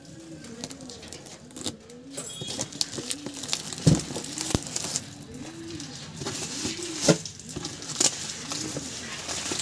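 A pigeon cooing over and over in low rising-and-falling coos, about one every two-thirds of a second. Over it, plastic shrink-wrap crinkles and the cardboard box is handled, with a few sharp knocks, the loudest about four and seven seconds in.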